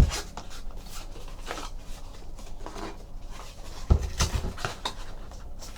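A trading card box being opened by hand: cardboard and packaging rustling and scraping, with a sharp knock at the start and another about four seconds in.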